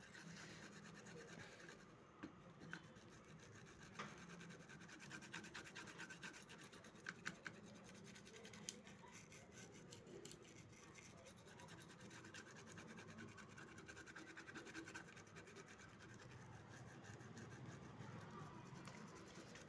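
Faint, soft scratching of a toothbrush scrubbing a circuit board wet with thinner, with a few light ticks here and there.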